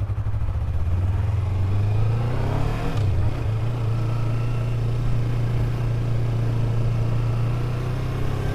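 Yamaha MT-03's parallel-twin engine pulling away, its pitch rising over the first few seconds, with a brief dip about three seconds in, then running steadily.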